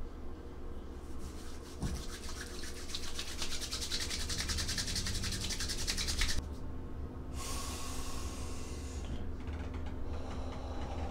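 Hands rubbing briskly together in quick, even strokes, which stop suddenly; a moment later a softer rubbing hiss of hands over the face.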